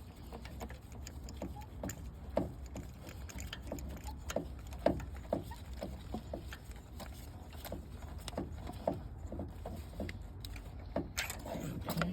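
Irregular small metallic clicks and taps as new spark plugs are threaded by hand into the cylinder head of a three-cylinder engine, over a low steady hum.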